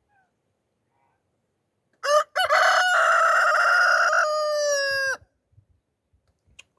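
A rooster crows once, starting about two seconds in: a short first note, then a long held call of about three seconds that bends down in pitch at the end.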